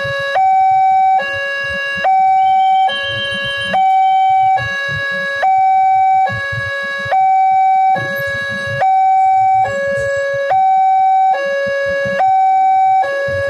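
Indonesian railway level-crossing warning alarm sounding from its loudspeaker: two electronic tones, high then low, each held just under a second and repeating steadily. The alarm sounds while the red lights flash and means a train is approaching the crossing.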